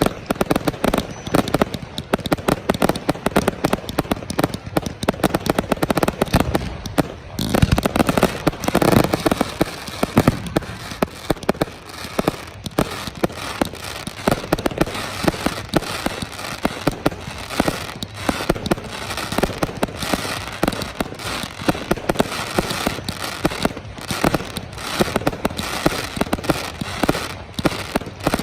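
Aerial fireworks display: a dense, unbroken run of bangs and crackles, with a heavier cluster of booms about seven and a half seconds in.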